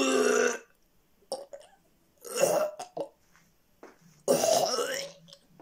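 Three short, loud non-speech vocal sounds from a person, each about half a second to a second long and about two seconds apart.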